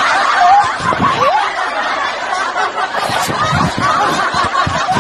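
Continuous laughter, an unbroken stretch of overlapping chuckles with no pauses.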